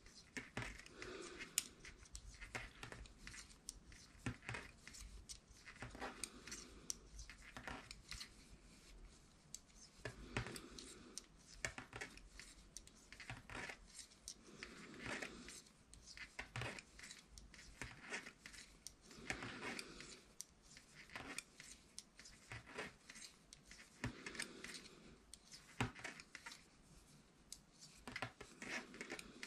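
Faint, irregular clicking of knitting needles tapping together as stitches are worked, with the soft rustle of wool yarn being drawn and handled every few seconds.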